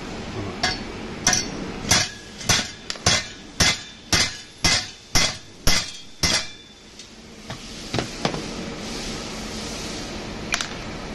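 Sharp metal-on-metal strikes with a short ring, about a dozen in a row at roughly two a second, stopping about six seconds in. Two fainter clicks follow.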